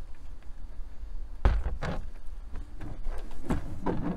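Several knocks and clunks of hard plastic trim, the loudest about one and a half seconds in, as the detached plastic cowl cover over a Tesla Model Y's cabin air intake is handled.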